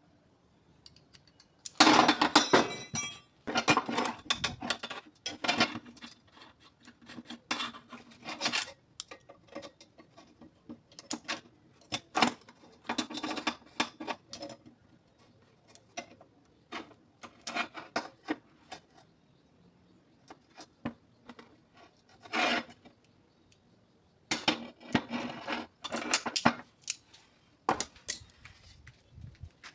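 Metal locking pliers being handled and worked by hand: irregular clicks, clinks and short scrapes of metal on metal, in clusters with pauses between.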